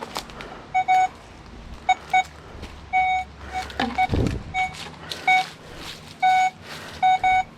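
Metal detector giving short beeps of one pitch, single and in quick pairs at irregular intervals, as the search coil is swept over the ground, with faint rustling and a low thud about four seconds in.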